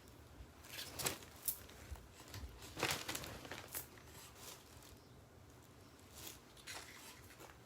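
Faint, irregular rustling and crinkling of a dress and its packaging being handled.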